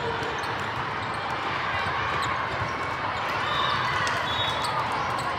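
Volleyballs being hit and bouncing on hard court floors across a large hall of games, many irregular sharp smacks over a steady hubbub of players and spectators.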